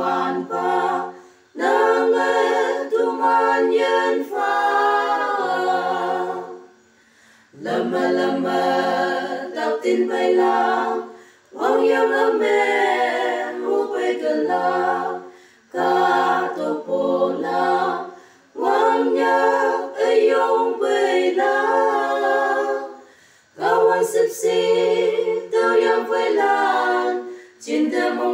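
Unaccompanied voices singing a slow song in Konyak, in harmony. The phrases last a few seconds each, with short breaks for breath between them.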